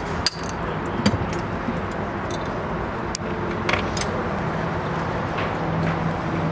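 Light metallic clicks and clinks from hands working on the boat engine's throttle and shutoff cables, over a steady low mechanical hum that grows a little louder near the end.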